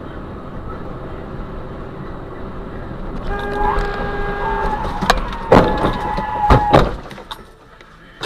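Road and engine noise inside a moving car. From about three seconds in, a car horn sounds in long held blasts, with several loud sharp knocks in the second half. It then drops back to a quieter cabin hum.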